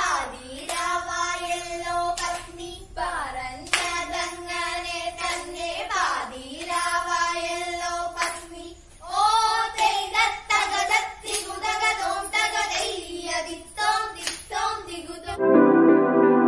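Girls singing a Malayalam Thiruvathira dance song together, with hand claps in time. Near the end it cuts suddenly to electronic keyboard music.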